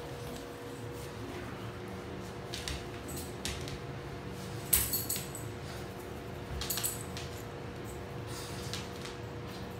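A few short, sharp clinks of a small hard dish knocking on a tile floor, the loudest about five seconds in and another near seven seconds.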